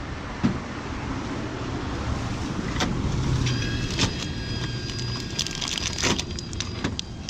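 Vending machine's plastic take-out flap clacking as it is pushed open, then a plastic candy bag crinkling as it is pulled out of the tray, over a steady hum of street traffic.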